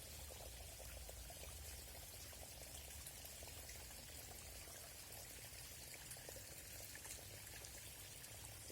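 Forest stream flowing, a faint steady rush of water with many small splashes and trickles.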